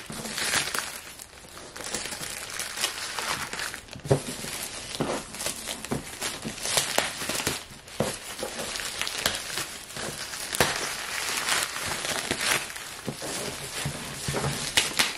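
Plastic packaging film crinkling and crackling as hands pull and work it off a parcel box, with many irregular sharp crackles.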